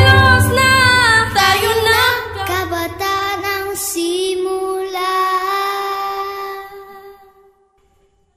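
The end of a sung song: voices singing over the band's accompaniment, then the accompaniment thins out and a final held note rings on and fades away, gone about seven and a half seconds in.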